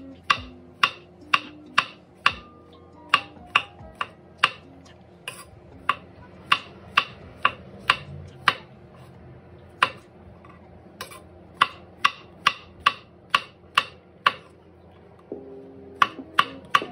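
A kitchen knife slicing mushrooms on a wooden cutting board, the blade knocking on the board about twice a second, with a pause of about two seconds near the end. Soft ukulele music plays underneath.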